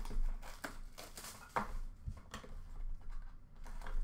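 Hands handling and opening a sealed Upper Deck Clear Cut hockey card box: scattered light clicks, taps and rustles of cardboard and packaging.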